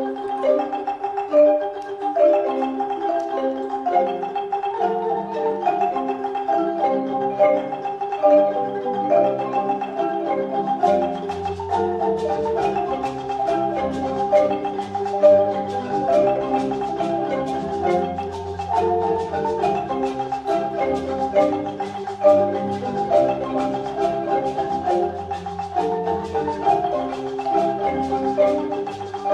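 Ensemble of wooden marimbas playing an interlocking, repeating pattern. A lower part enters about four seconds in, and around eleven seconds a deep bass marimba joins, along with sharp ticks on the beat.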